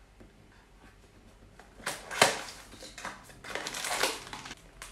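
Small cardboard gift box being torn open by hand: a sharp rip about two seconds in, then more tearing and rustling of the card near the end.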